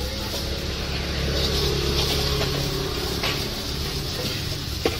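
A vehicle engine hum from passing street traffic, with a couple of light clicks, the sharpest near the end.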